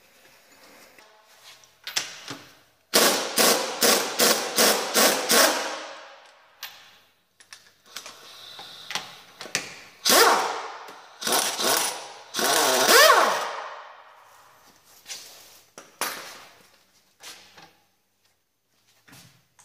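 Impact wrench running in short bursts to undo the upper strut mount. There are about eight quick trigger pulses about three seconds in, then longer runs whose pitch swings up and down, followed by a few lighter metallic clanks near the end.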